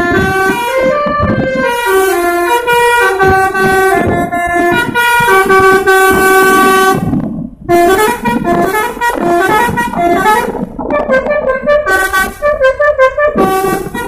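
A bus's basuri multi-tone musical horn playing a melody in held, stepped notes, breaking off briefly about halfway through before the tune carries on.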